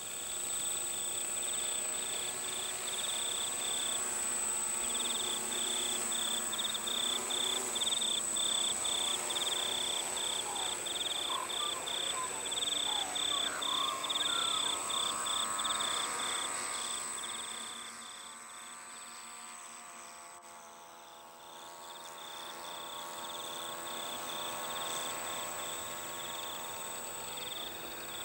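Turnigy Micro Quad's small electric motors and propellers whirring as it hovers and flies low, the pitch shifting with throttle. A rapid, regular chirping of about three pulses a second runs alongside, fading about two-thirds of the way through.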